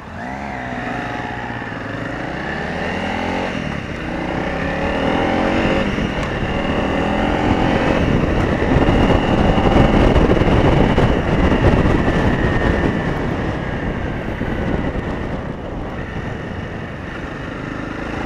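Honda CRF250 Rally's single-cylinder 250 cc engine pulling away from a standstill and revving up through the gears, its pitch climbing in each gear and dropping at the shifts. As speed builds, a rushing wind noise swells over the engine, loudest about halfway through, then eases.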